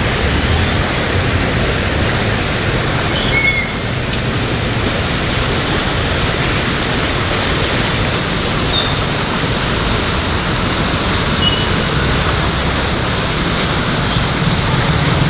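A river in flood rushing past: a loud, steady wash of fast, turbulent muddy water.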